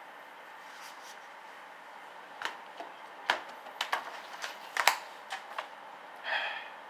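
Magazine and brochure pages being turned and handled on a table: a run of short, crisp paper crackles and taps, with a longer sliding rustle near the end.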